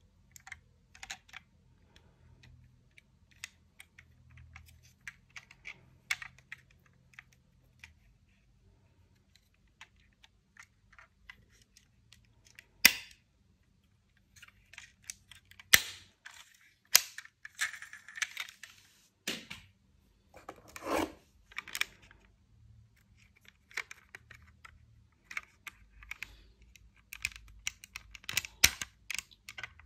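Small diecast toy cars clicking and clattering as they are handled and set down on a hard surface: irregular sharp taps, several louder knocks in the second half, and a short rattle a little past the middle.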